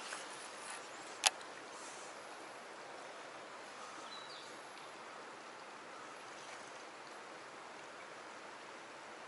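Steady faint outdoor hiss with one sharp click about a second in.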